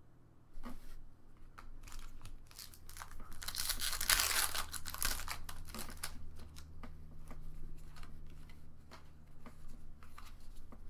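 A foil Pokémon booster pack is torn open and its wrapper crinkled, loudest from about three and a half to five seconds in. Trading cards click and rustle in the hands before and after.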